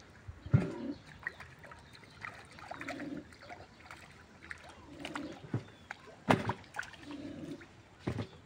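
Water splashing in short, irregular bursts as a fish thrashes at the surface of a pond, with a dove cooing softly in the background.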